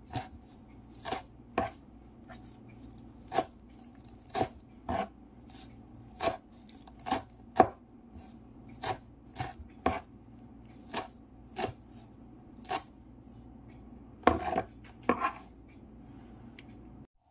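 Kitchen knife chopping fresh herbs on a wooden cutting board: sharp knocks of the blade on the board, about one or two a second and unevenly spaced, with a quick flurry of strikes near the end before the sound cuts off suddenly.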